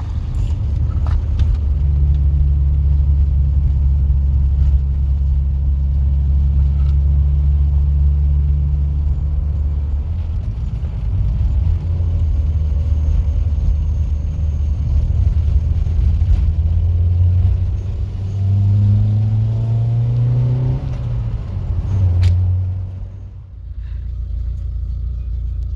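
A motor vehicle's engine running with a loud, steady low rumble. Near the end its pitch climbs and falls a couple of times as it revs, then settles back to a lower steady note.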